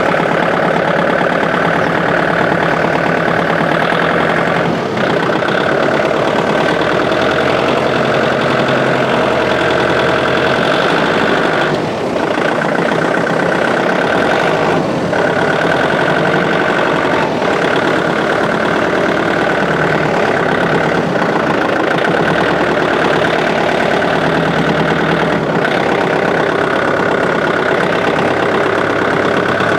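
A vehicle engine running steadily at idle without a break, its pitch and level hardly changing.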